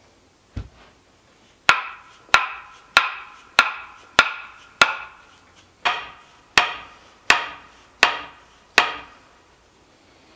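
A homemade wooden tamper, a square wooden block on a freshly cut green dogwood handle, lifted and banged down on its block in a steady rhythm: one dull thud, then eleven sharp, ringing wooden knocks, a little slower towards the end. The block is being seated on its new handle after the old one kept breaking out.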